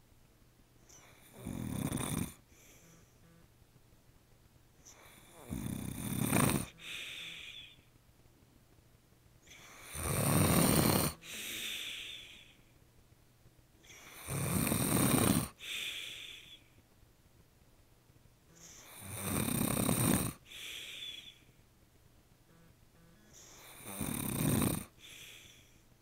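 A man snoring in his sleep with his mouth open: six loud snores, about one every four seconds, each followed by a quieter breath.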